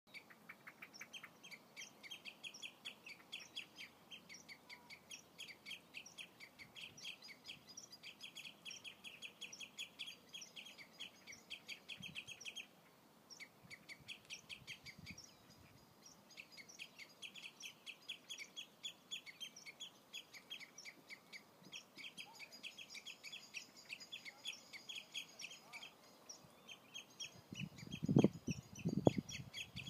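Common redshanks calling: long runs of fast, repeated piping notes, about five a second, pausing briefly twice. A few low thumps near the end.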